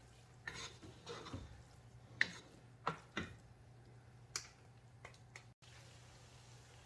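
Faint scattered taps and scrapes of a spoon stirring lentils frying in a cooking pot, about seven light clicks over a few seconds, with a low steady hum underneath.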